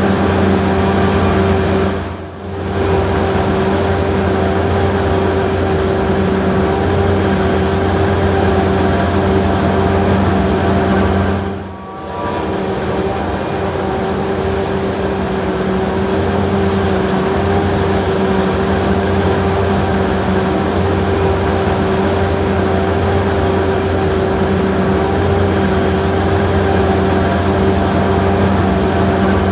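Heavy diesel farm machinery running steadily under load, its engine note holding a constant pitch, with two brief dips in level, about two seconds in and again near twelve seconds.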